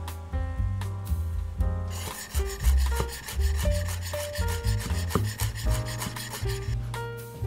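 Kitchen knife chopping fresh parsley on a wooden cutting board in rapid, even strokes, starting about two seconds in, over background music.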